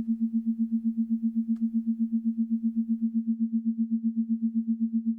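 Sonified space audio for the dwarf planet Quaoar: a single steady low electronic tone that pulses evenly about ten times a second, like a signal.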